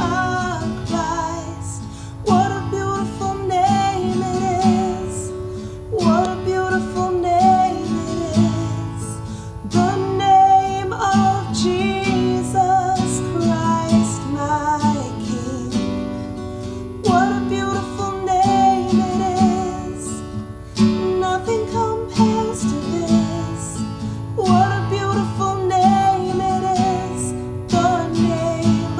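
A woman singing a worship song in sung phrases of a few seconds each, accompanied by a steadily strummed acoustic guitar.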